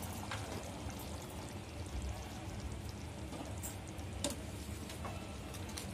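Thick egg curry gravy bubbling in a steel pan, a steady low bubbling with scattered soft pops, still going just after the gas has been turned off.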